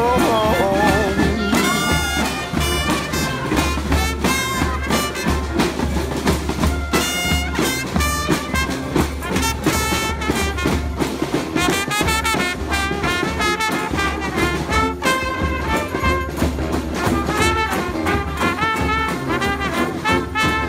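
Traditional New Orleans jazz marching band playing on the move: brass horns and clarinets carry the tune over banjos and a bass drum keeping a steady beat.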